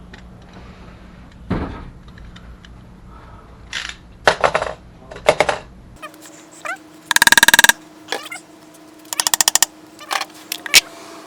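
Hand tools working on a wooden speaker box: scattered clicks and knocks, a short loud rasp past the middle, and a quick rattling run of taps later on, over a low steady hum in the first half.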